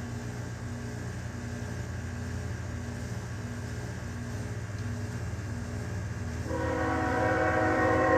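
Low, steady rumble of an approaching CSX empty coal train. About six and a half seconds in, the GE Evolution-series locomotive's third-generation Nathan K5HL five-chime horn starts one long, loud blast that is still sounding at the end.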